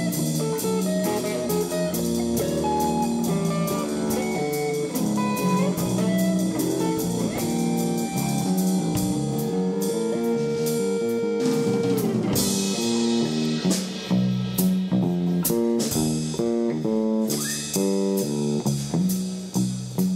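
Jazz trio of guitar, bass and drum kit playing together, the drums keeping up busy hits throughout. About halfway through a long held guitar note bends downward, and the music then moves into quick repeated pulsing notes.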